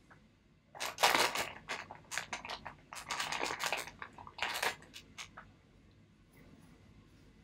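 A dried peel-off face mask being peeled and picked off by hand close to the microphone, crackling and tearing in irregular bursts for about four and a half seconds before stopping.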